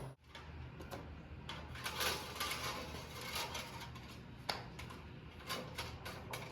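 Faint, irregular light clicks and short scrapes of hand work at a tractor loader frame, likely wire being fed through it.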